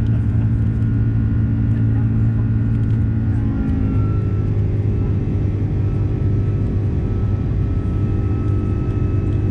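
Jet engine noise inside the cabin of an Airbus A330 climbing after takeoff: a loud, steady rumble with a droning hum. The pitch of the hum shifts about four seconds in.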